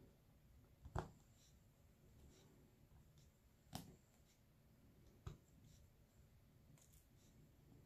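Diamond painting drilling: faint clicks and taps of a drill pen picking up and pressing resin diamond drills onto the canvas, three sharper taps spread through a near-silent stretch.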